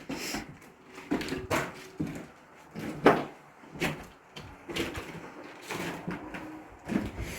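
Objects being handled and moved: an irregular string of sharp knocks and scrapes, roughly one every half-second to second, the loudest about three seconds in.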